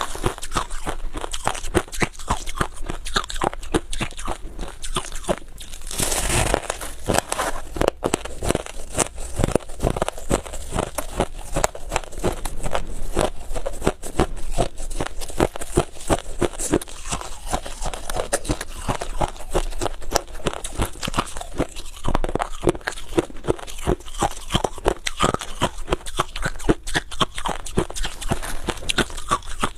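Close-up crunching and chewing of freezer frost ice: dense, irregular crackly crunches several times a second, with a louder, fuller crunch about six seconds in.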